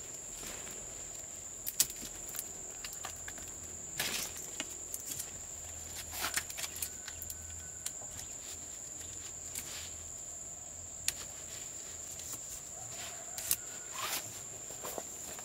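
A steady high-pitched whine runs throughout, with scattered sharp clicks and knocks and light rustling, like someone handling things and stepping about.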